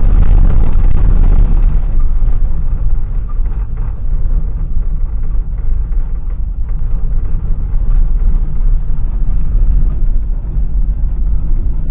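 Steady low rumble of road noise inside a vehicle's cabin while driving on a dirt road: tyres on the unpaved surface and the running engine.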